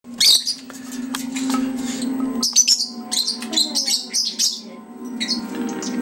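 Female eclectus parrot giving a string of short, high chirping calls, the loudest right at the start, over a steady low hum.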